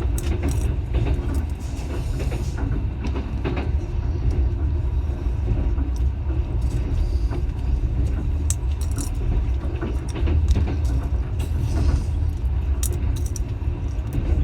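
Train running on the rails: a steady low rumble with irregular rattles and clicks over it.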